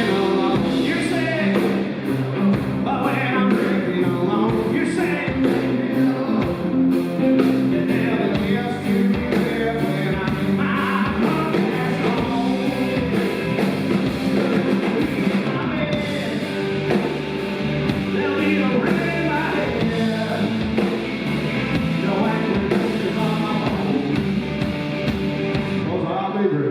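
Live rock band playing loudly, with drum kit and guitars.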